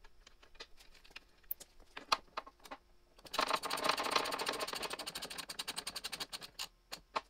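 Small plastic clicks and rattles as a car's ambient temperature sensor and its plastic mount are handled. About three seconds in, a fast, even run of ratcheting clicks lasting some three and a half seconds follows, as a zip tie is pulled tight through its catch to fasten the sensor.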